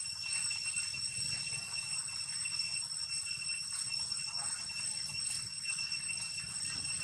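Long-tailed macaque eating a soft ripe papaya: faint, irregular wet smacking and chewing clicks. A steady high-pitched whine with overtones runs underneath.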